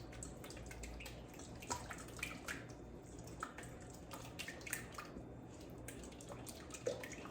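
Thick, mayonnaise-based Caesar dressing being stirred in a bowl: soft, wet clicks and ticks of the utensil against the bowl, coming irregularly.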